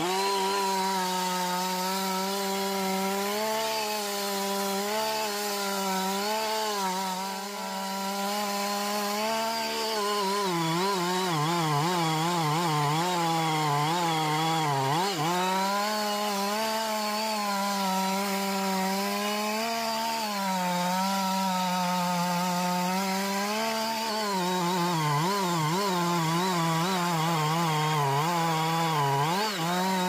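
Two-stroke chainsaw running at high revs, cutting into anjili (wild jack) wood. Its engine note wavers under load throughout and sags briefly about a quarter and again about halfway through.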